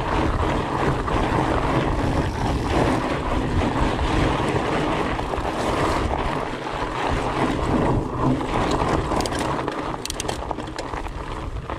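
Wind buffeting the microphone over the steady crunch and rumble of a Fatback Rhino FLT fat bike's wide tyres rolling on loose desert gravel, with a few sharp clicks about nine seconds in.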